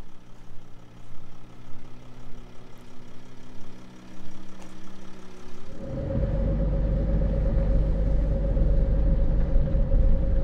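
Vehicle engine heard from inside the cab, running low and steady, then about six seconds in suddenly much louder: a heavy low rumble with a steady hum on top as the vehicle gets under way.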